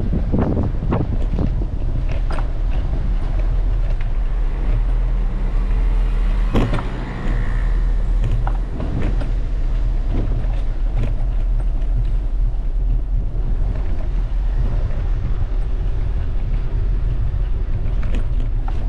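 Steady low rumble of wind and road noise while riding a bicycle through city streets, with scattered clicks and knocks.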